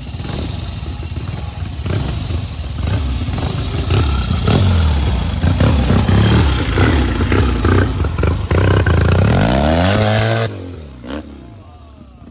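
Vintage trials motorcycle engine revving up and down in short blips as it is ridden through a rocky section. It gets louder about four seconds in as the bike comes close. Near the end the revs climb, then drop suddenly and fall away.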